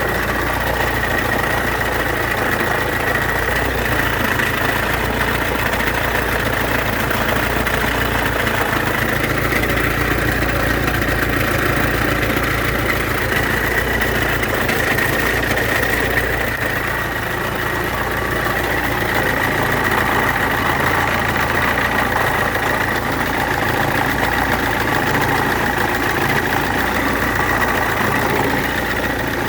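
Iveco Daily diesel engine idling steadily, a steady high-pitched tone riding over the engine hum. The owner suspects this noise comes from the belt-drive rollers (water pump, tensioner, alternator).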